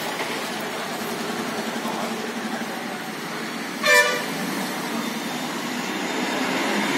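Steady background street traffic, with one short vehicle horn toot about four seconds in.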